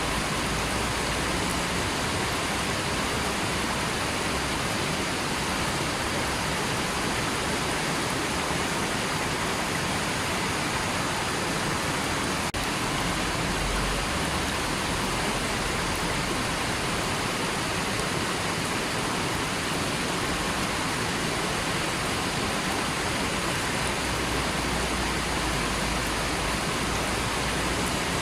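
River water rushing and flowing steadily, an even, unbroken sound of running water.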